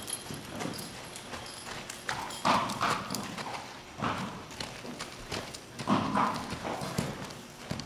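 Horse's hooves striking dirt arena footing as it is ridden at a walk, with uneven hoofbeats and a few louder thuds.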